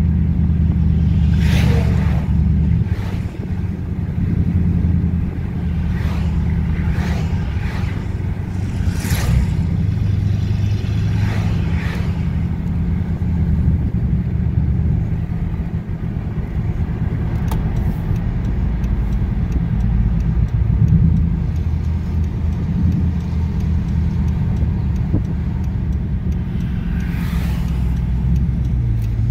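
Low car engine rumble at road speed in traffic, heard from inside a following car, with several brief swells of passing vehicles going by.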